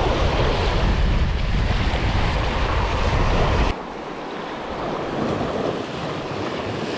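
Sea surf washing around a rock, with wind buffeting the microphone as a heavy low rumble that cuts off suddenly just after halfway, leaving the sound of the waves.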